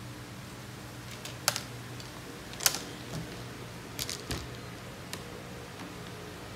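About five scattered, sharp hard-plastic clicks and knocks, the loudest a little before the middle, as a child lifts, tilts and grips a plastic shopping basket by its handles; a steady low hum runs underneath.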